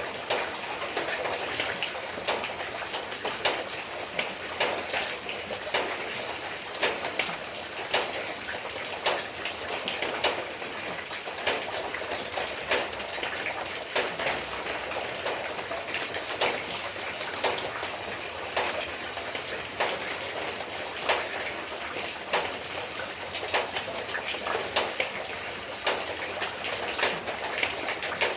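Steady rain: a constant hiss of falling water with frequent, irregular sharp taps of single drops striking.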